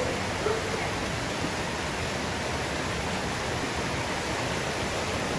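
Shallow mountain creek rushing over rocks: a steady, even rush of running water.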